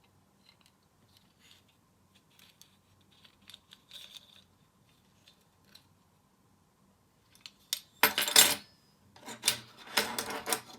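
Small metal parts clinking and tapping lightly, then two loud bursts of metallic rattling near the end.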